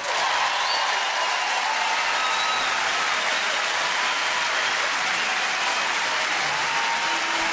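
Large theatre audience applauding steadily, breaking out as the song ends.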